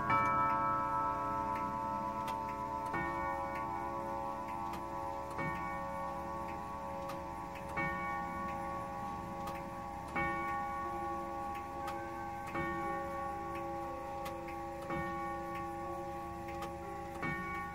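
Tubular-bell grandfather clock striking the hour on one tube, a strike about every two and a half seconds, each ringing on into the next, with the clock ticking faintly underneath.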